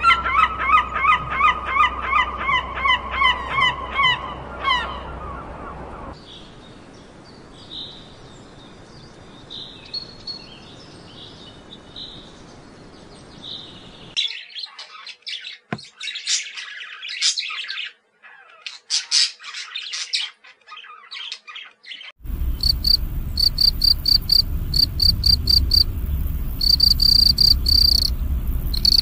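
A series of separate animal calls. First a gull gives quick repeated calls for about five seconds, then comes a quieter stretch of faint high calls. About halfway through a parrot gives sharp chirps and squawks, and in the last quarter field crickets chirp in an even, fast pulse over a low rumble.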